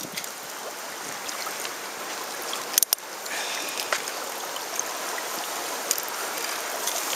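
Flowing river water running steadily around the angler, with two sharp knocks a little under three seconds in.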